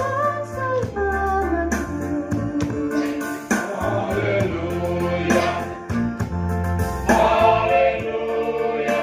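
Several voices singing a slow gospel song together over instrumental accompaniment with a steady bass line that changes note every second or so.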